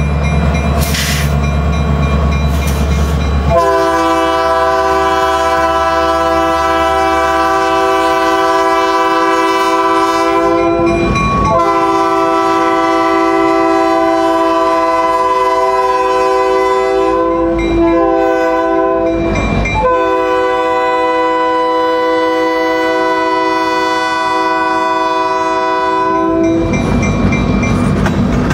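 Diesel locomotive horn sounding the grade-crossing signal of two long blasts, one short and one long, from a BNSF GP39M leading a tank-car freight. Before the horn the locomotives' diesel engines rumble past, and after it the tank cars' wheels clatter on the rails.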